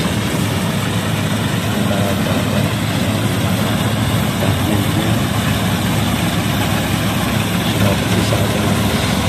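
Compact rice combine harvester running steadily as it cuts through standing rice, a constant low engine drone.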